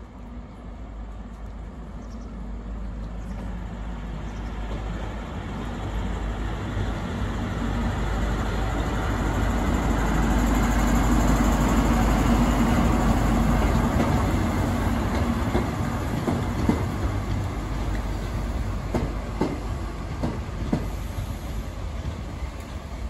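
CrossCountry HST led by Class 43 power car 43357 approaching and running past the platform: the power car's diesel engine grows steadily louder, peaks about halfway through as the locomotive passes, and then fades as the coaches follow. Near the end the coach wheels click over the rail joints.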